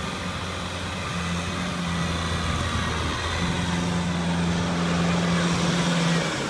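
Kubota M-series farm tractor's diesel engine running steadily as the tractor works through a muddy paddy with a rear implement, growing louder as it comes close and passes.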